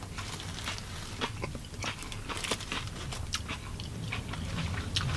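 A person chewing a mouthful of sandwich and fries, with small wet mouth clicks scattered throughout, over a low steady hum.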